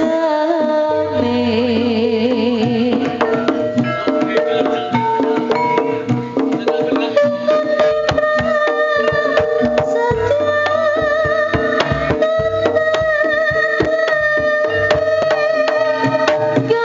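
Live jaranan music played through a sound system: many quick hand-drum strokes under a sustained, wavering melody.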